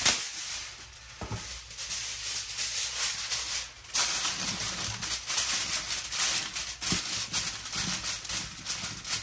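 Aluminium foil crinkling and rustling as a sheet is pulled from the roll and spread over a baking tin, with a sharp crackle at the start.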